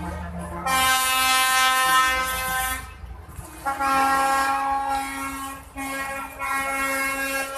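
Truck air horns sounding three long blasts a second or so apart, each a chord of several steady tones.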